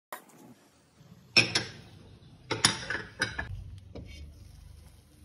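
Metal-rimmed glass pan lid knocking against the rim of a frying pan: a light click at the start, then three sharp clinks spread over the next two seconds as the lid is handled on the pan.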